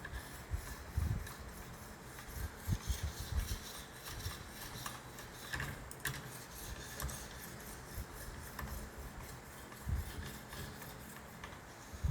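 A polishing stone on a guided sharpening system's arm is rubbed in repeated strokes along the steel edge of a skinning knife, giving a light scraping hiss. Scattered low knocks come in between the strokes.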